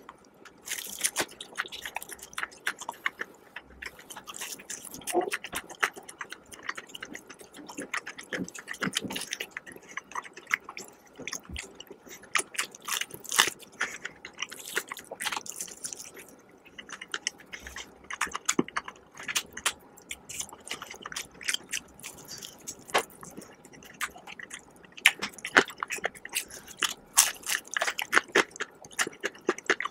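Crispy fried chicken breading crackling and crunching close to the microphone as the pieces are pulled apart and bitten, with chewing, in a dense, irregular run of sharp crackles.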